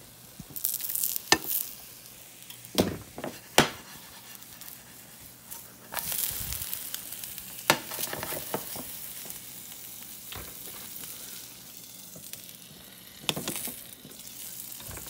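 Sandwich frying in bacon grease in a pan: a steady sizzle, broken by several sharp knocks against the pan. The sizzle swells about six seconds in as the sandwich is turned over onto its unbrowned side, and a glass lid clatters onto the pan near the end.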